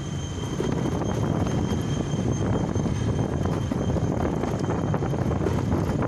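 Steady low rumble of a vehicle in motion along a rough road, with wind buffeting the microphone.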